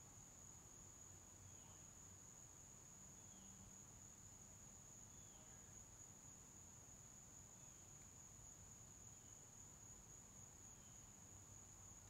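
Faint, steady high-pitched insect trill, with a soft short chirp about every two seconds.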